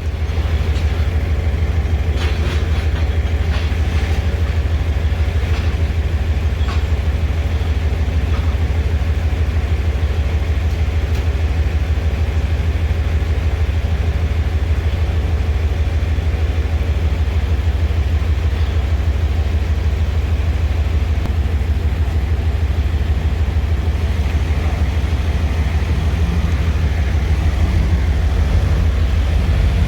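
Heavy diesel engine running steadily, a low even rumble that grows a little louder near the end.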